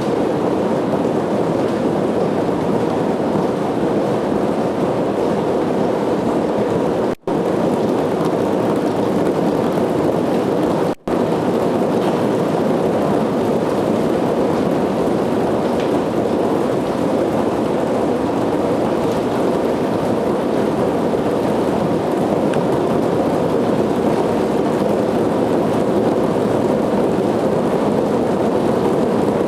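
Hundreds of small DC motors on a wall of cardboard boxes, each swinging a ball on a wire against its box, together making a dense, steady rattling buzz. The sound drops out for an instant twice, about seven and eleven seconds in.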